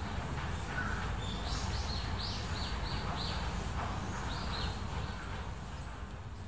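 Small bird calling: a quick run of short, high chirps, each falling in pitch, then two more a little later, over a steady low outdoor hum.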